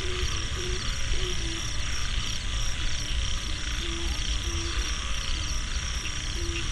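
Sanu, the bow-hummer strung on a flying Thai kite, humming overhead: a low tone that comes and goes in short spurts as the wind catches it, over a steady high-pitched pulsing chorus of night insects.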